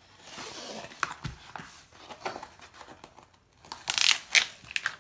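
Crinkling and rustling of a large diamond-painting canvas's plastic cover film as it is handled, with a burst of loud crackles about four seconds in.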